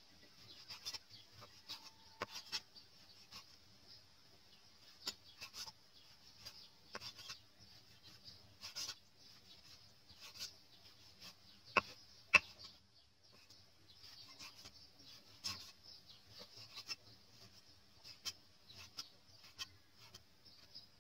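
Knife cutting raw beef on a thick wooden chopping block: irregular taps of the blade meeting the wood, with two sharper knocks close together about twelve seconds in.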